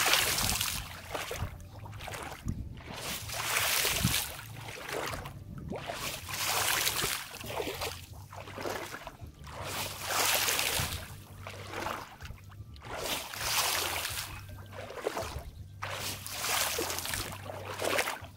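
Pond water kicked up in repeated splashes, each a rush of spray falling back onto the surface, about one every second and a half. This is té nước, splashing the water to drive out climbing perch.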